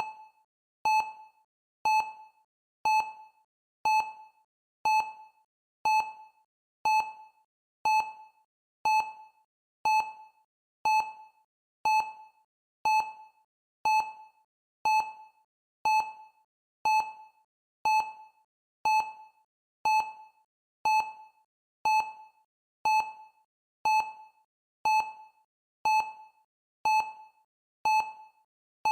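Countdown timer's electronic tick: a short, clear blip once every second, each one dying away quickly, marking the seconds as the timer counts down.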